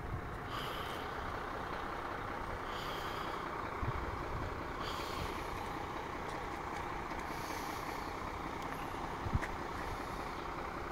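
A heavy diesel truck idling steadily, with a faint high hiss coming back about every two seconds.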